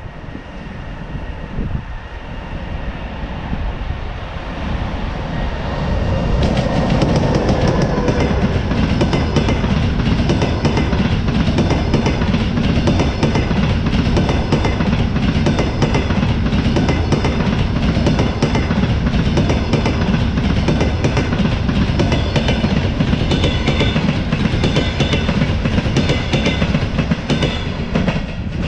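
An EP20 electric locomotive and its long train of double-deck passenger coaches approach and pass close by. The rumble grows over the first six seconds, then the wheels clatter steadily over the rail joints until the train's tail goes by near the end.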